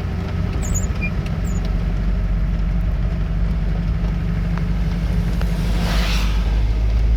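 Mahindra SUV's engine running steadily at a constant speed, with a brief rush of hiss about six seconds in.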